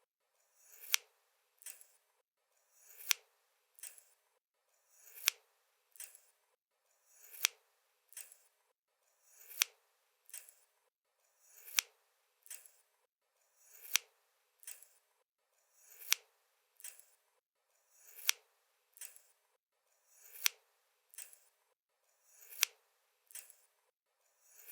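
Pair of scissors snipped in a slow, even rhythm, about one snip every two seconds. Each snip is a short slide of the blades ending in a sharp click, followed by a softer click.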